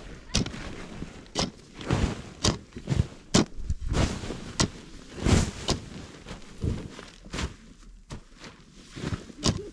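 Hoe blade chopping into loose earth and dragging it, in irregular strokes roughly one or two a second.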